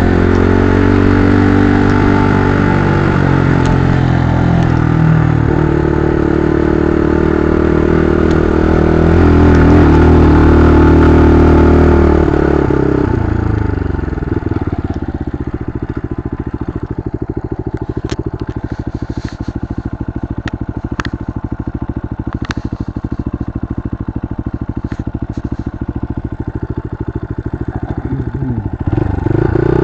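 Mitt scrambler motorcycle engine revving under load, its pitch rising and falling, then dropping to a steady idle about thirteen seconds in, with a few sharp clicks over the idle. It revs up again near the end.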